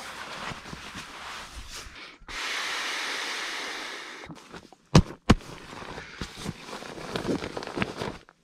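Camping bedding and gear being handled: rustling with small clicks. A steady hiss lasts about two seconds. Two sharp knocks come about five seconds in, half a second apart.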